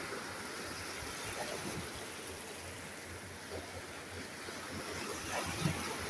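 Small waves breaking and washing up over sand at the water's edge, a steady hiss of surf and foam that gets louder near the end.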